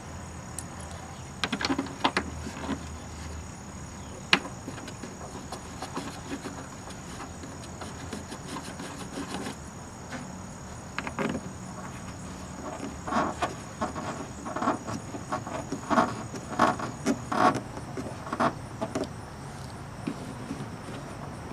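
Wire brush scrubbing rust off small metal screws: scattered scratchy strokes and clicks, turning into a quick run of strokes in the second half.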